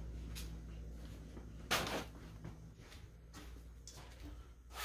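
Footsteps on a concrete basement floor, with one louder scuff a little under two seconds in, over a steady low hum.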